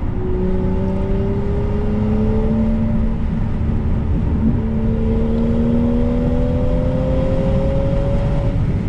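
Straight-piped BMW 760Li's V12 exhaust droning inside the cabin under steady acceleration, its pitch slowly rising, over a constant rumble of tyre and road noise.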